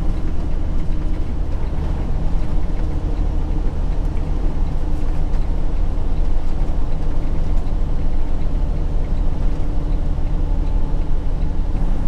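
Semi-truck diesel engine and road noise heard inside the cab while driving, a steady low drone.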